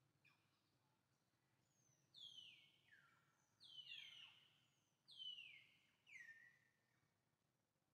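A bird calling faintly: a quick series of about five high whistled notes, each sliding downward, starting about two seconds in, over a faint steady outdoor hum.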